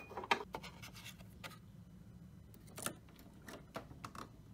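Scattered light clicks and taps from hands handling a Nespresso capsule espresso machine: a porcelain espresso cup set on its metal cup grid, then the machine's capsule lever being handled. A low steady hum runs underneath.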